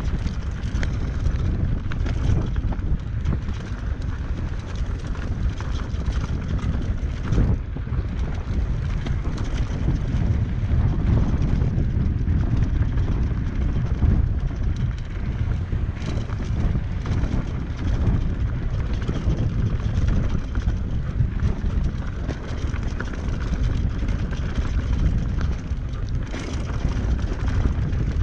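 Wind buffeting the microphone of a mountain biker's camera on an enduro descent, over the continuous rattle and clatter of the bike and tyres on rough trail.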